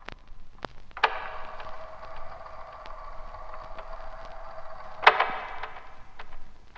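Sharp clicks and knocks at uneven intervals, the loudest about a second in and about five seconds in, over a faint steady hum that stops after the second loud knock.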